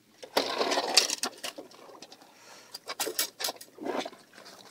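Scattered clicks and clatter of Dungeness crabs' hard shells and legs knocking against the wire mesh of a crab trap and a plastic crab gauge as gloved hands pick the crabs out, with a rustle in the first second.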